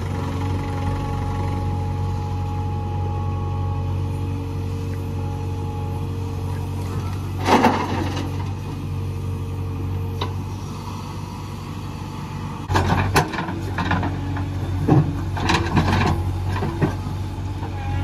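Heavy diesel machinery engine running steadily, with a brief rough scraping burst about seven seconds in and a run of sharp knocks and clanks over the last five seconds.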